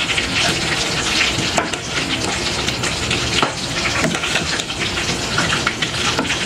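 A spoon stirring meatballs through a pot of hot tomato sauce: a steady hiss from the cooking sauce, with many small scrapes and taps of the spoon against the pot.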